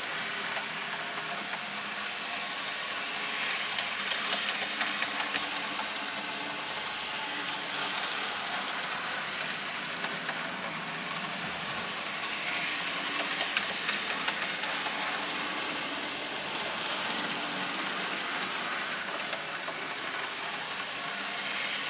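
Two N-scale model trains running on the track: the small electric motors give a steady hum under a fine, rapid clicking of wheels on rail. The sound swells a little twice as the trains pass close by.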